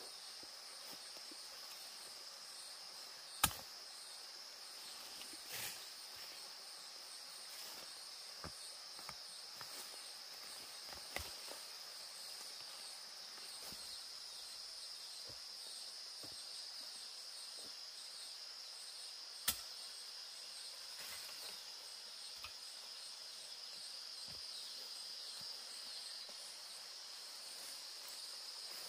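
Steady high-pitched insect chorus. It is broken by scattered knocks and taps, two of them sharp and loud: one a few seconds in and one about two-thirds of the way through.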